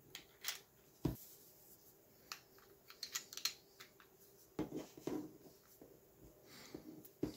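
Light clicks and taps of hard 3D-printed plastic extruder parts being handled and fitted together by hand, with a duller knock about a second in, a quick run of clicks around three seconds in, and louder handling rustle near five seconds in.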